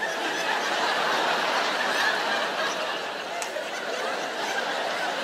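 Live audience laughing together, swelling right at the start and carrying on steadily.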